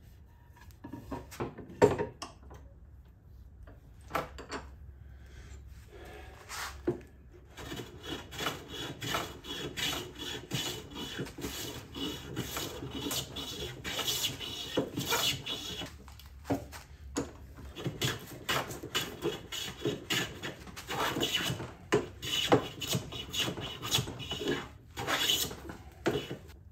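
Hand plane shaving the edge of a walnut board clamped in a bench vise, in quick repeated strokes from about seven seconds on. A few sharp wooden knocks come first, the loudest just under two seconds in, as the board is set in the vise.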